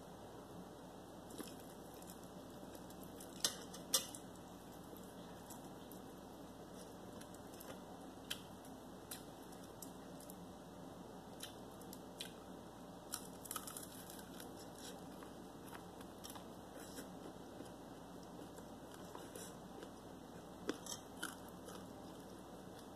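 A person eating: chewing with scattered crunchy bites of breaded fried chicken and short sharp clicks. The clicks come throughout, a few louder ones a few seconds in and again near the end.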